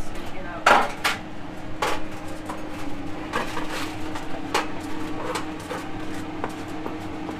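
Kitchenware clattering: a utensil stirring and knocking in a metal skillet, and tins and cups handled on the counter, giving several sharp knocks, the loudest about a second in, over a steady hum.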